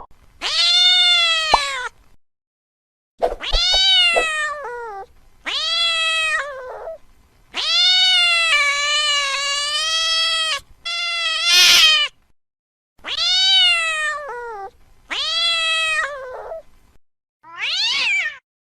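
Angry domestic cat yowling: a series of about eight drawn-out meows, each a second or two long and one held for about three seconds, with short silent gaps between them.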